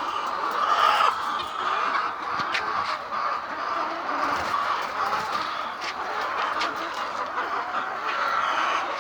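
A large flock of laying hens clucking and calling together in a poultry shed, a dense steady din with a few short clicks.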